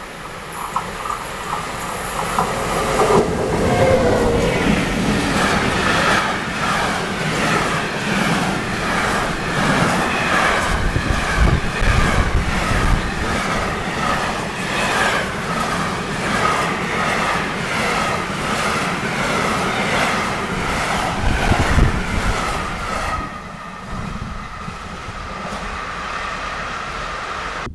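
Freight train of empty container flat wagons passing close behind its locomotive. It grows louder over the first few seconds, then gives a long run of clickety-clack as wheel after wheel crosses the rail joints. It falls away near the end as the last wagons go by.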